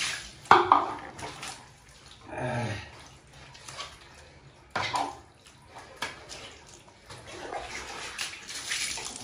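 Water splashing and pouring onto a wet husky's coat as it is washed by hand and doused from a mug, with a few sharp, loud splashes.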